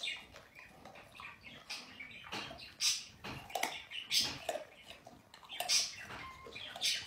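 Budgerigar chattering in short, scratchy chirps that come every second or so.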